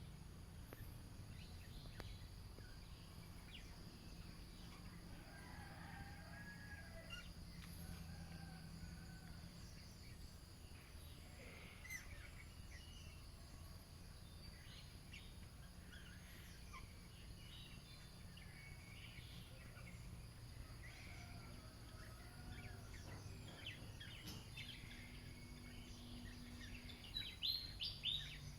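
Budgerigars chirping and chattering faintly: scattered short high chirps and warbles, with a louder cluster of chirps near the end. Under them runs a steady low hum and a steady high-pitched tone.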